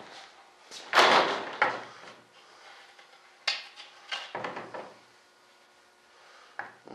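Several knocks and clatters of objects being handled and set down in a workshop. The loudest comes about a second in, with more between three and four and a half seconds.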